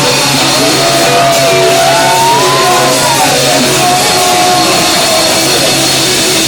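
Live heavy rock band playing loudly: electric guitar with shouted vocals, and a high pitched line sliding up and then down in the middle.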